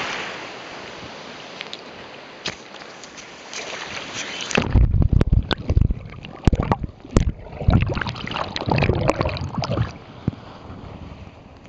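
Shallow surf washing in with a steady hiss. About four and a half seconds in it turns into loud, irregular sloshing and splashing of water right at the microphone, with knocks of handling noise, for about five seconds.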